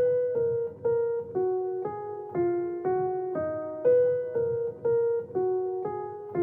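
Background music: a simple melody played one note at a time on a piano-like keyboard, about two notes a second, each note fading after it is struck.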